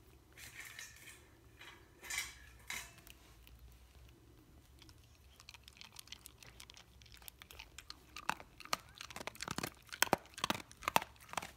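A dog's mouth at close range: wet smacking and crunchy chewing clicks that grow quicker and louder in the second half, after a few soft rustles early on.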